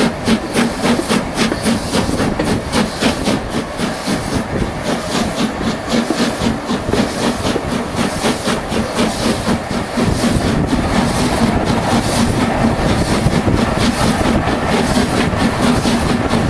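A train running on a heritage railway, with a quick, regular beat over a steady hiss; it gets louder about ten seconds in.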